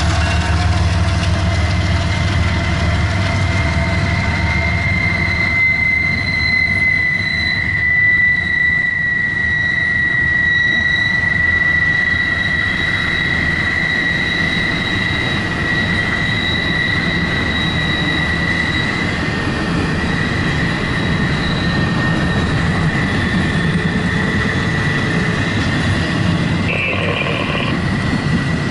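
Double-stack intermodal freight train rolling past, its cars rumbling and clattering steadily, with a long high-pitched wheel squeal that holds through most of the passage.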